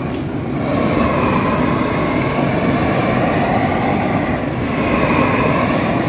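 Long-handled propane torch burning with a steady, continuous rushing noise as its flame singes the hair off a pig carcass.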